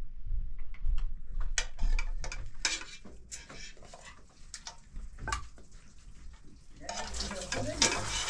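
Kitchen clatter: dishes and utensils knocking and clinking in short, irregular strokes, with a louder rush of noise near the end.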